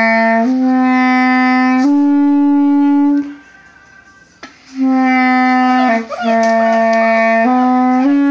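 Clarinet playing long held notes: a slow rising three-note phrase, a pause of about a second and a half, then the same rising phrase again.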